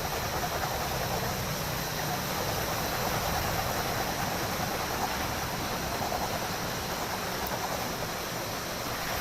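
Steady rushing of flowing water, like a stream or irrigation channel, with faint steady high-pitched tones above it.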